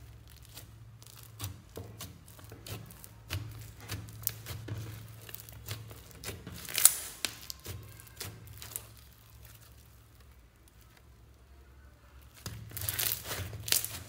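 Hands squeezing and pressing crunchy foam-bead slime: irregular crackles and sticky pops as the beads and slime are squashed, loudest about seven seconds in, quieter for a few seconds, then dense crackling again near the end.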